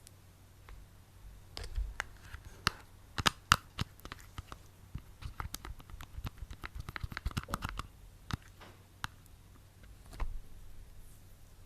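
Aloe vera gel being rubbed between hands, making irregular sticky clicks and wet crackles that come thickest in the middle and thin out near the end.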